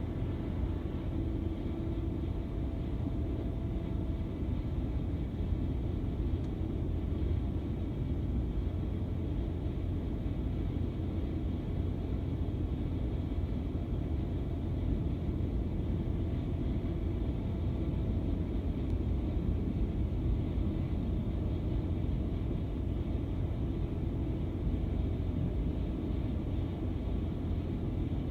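Skid steer running a snowblower attachment: a steady engine rumble with a faint steady whine, unchanging throughout.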